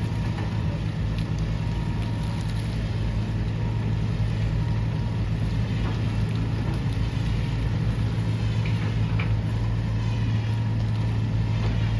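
A vehicle engine running steadily at a constant low drone, with no revving or change in pitch.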